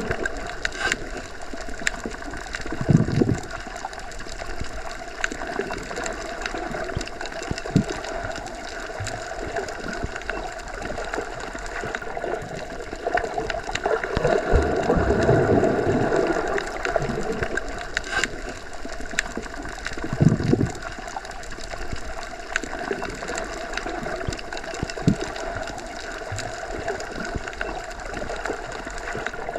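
Underwater ambience: a steady watery rush with low gurgling swells a few times, and scattered small clicks.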